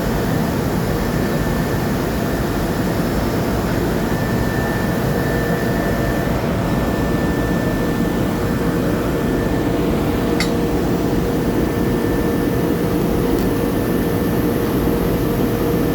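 Steady hiss and hum of TIG welding equipment running, with one sharp click about ten seconds in.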